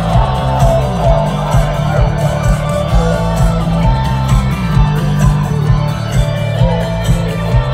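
A live band playing loud music through the concert speakers: drums keeping a steady beat of about two a second, with heavy bass, electric guitar and keyboard, and a voice singing over it.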